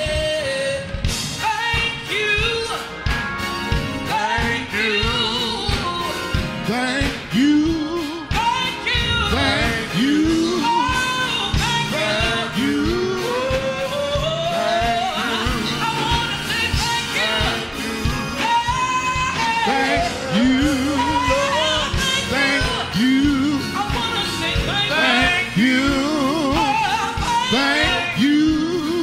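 Live gospel praise-and-worship music: a woman sings lead into a microphone, with sliding, held notes, over keyboard accompaniment with a steady beat.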